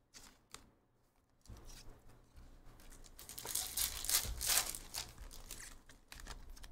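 A 2024 Topps Chrome UFC hobby pack wrapper being torn open and crinkled by hand. The rustling starts after a short quiet, is loudest partway through, then trails off into softer rustles.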